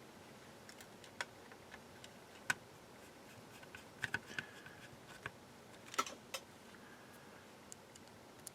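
Plastic parts of a Brother P-Touch PT-100 label maker clicking and tapping as they are handled and fitted back together. Scattered sharp clicks, with small clusters about four and six seconds in.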